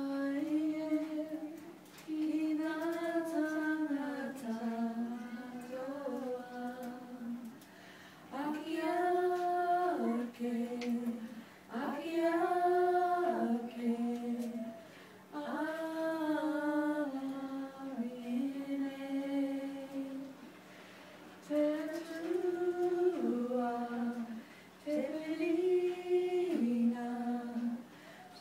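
A small group of women singing a Māori waiata in unison, unaccompanied, in held phrases with short breaks for breath between them.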